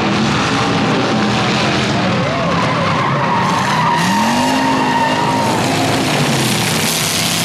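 Race cars' engines running and revving on the oval, one pitch rising about four seconds in. Over them, a steady scraping hiss from a wrecked car dragging loose metal along the track and throwing sparks.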